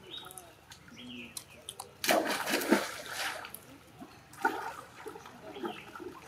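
Pool water splashing as young macaques jump and wade in: one loud splash about two seconds in lasting about a second, and a shorter splash a little after the middle. A few brief high squeaks come before the splashing.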